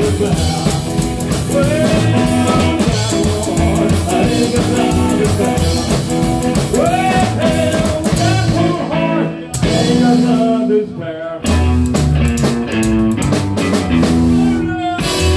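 Live rockabilly band playing: upright bass, drum kit and electric guitar, with a man singing. The band drops out for brief stops a couple of times in the second half.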